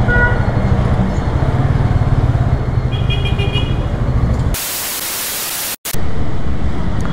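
Hartford Leopard 223 cruiser's carburetted engine running steadily at low revs as the bike rolls along and stops. About four and a half seconds in, it is replaced by a second of even hiss and a brief dropout, then the engine sound returns.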